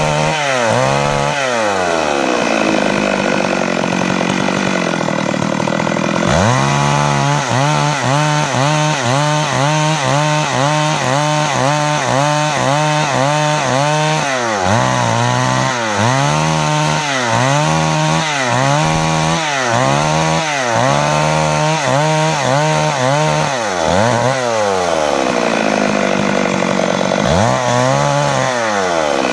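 Stihl MS 382 two-stroke chainsaw ripping a log lengthwise at full throttle. Its engine note dips under load and recovers in a steady rhythm, roughly twice a second, as the chain is worked through the cut.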